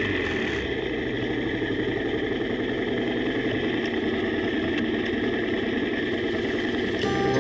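Single-cylinder dual-sport motorcycle engine idling steadily. Guitar music comes in right at the end.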